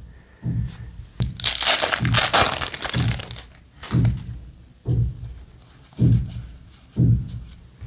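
Foil booster pack of Yu-Gi-Oh! trading cards being torn open, a loud crackling crinkle lasting about two seconds, followed by soft handling sounds of the cards about once a second.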